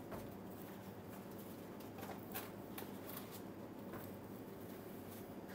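Knife slicing through a roasted duck breast on a plastic cutting board: faint, irregular scrapes and light taps of the blade on the board, over a steady low hum.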